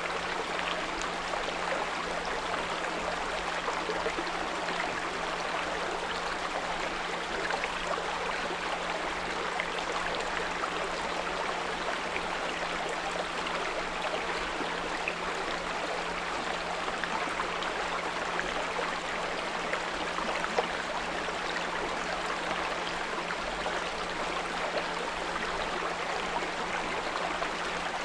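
Small brook running steadily over stones, with a steady 174 Hz pure tone underneath it.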